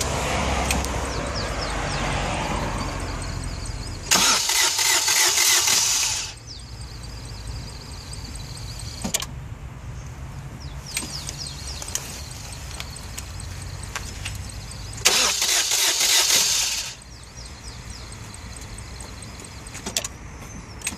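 Fiat Punto 1.3 JTD Multijet diesel engine, on a car with a fault, running with a steady lower sound, broken twice by loud bursts of about two seconds each, some eleven seconds apart.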